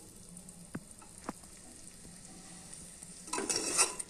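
Pork pieces frying in masala, sizzling faintly in a pressure cooker, with two light taps of a metal ladle early on; about three seconds in the ladle starts stirring and scraping against the pot, much louder.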